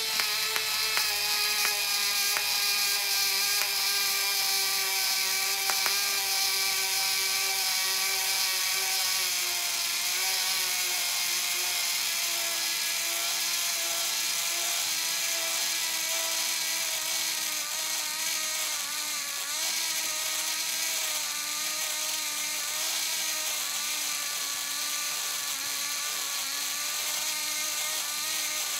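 Small DC motor and plastic gearbox from an animatronic Hedwig owl toy running on a bench power supply, giving a steady whirring whine whose pitch sinks slowly. The motor is still alive after the toy was overvolted until it popped.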